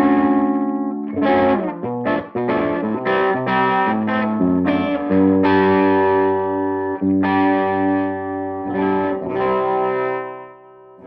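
Electric guitar played through a Tone King Gremlin amplifier's overdriven lead channel. It plays a run of short chord stabs, then longer ringing chords, and the last chord fades out near the end.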